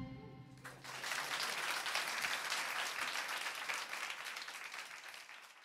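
Audience applauding, starting about a second in as the band's last chord dies away, then fading out near the end.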